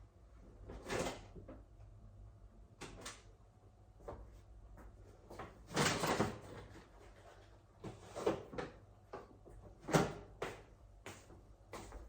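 Food packages and containers being handled and packed into a freezer: a string of knocks and rustles, with the loudest knocks about six seconds and ten seconds in.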